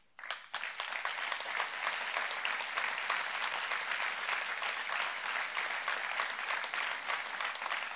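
Audience applause: a large seated crowd clapping steadily, starting about half a second in.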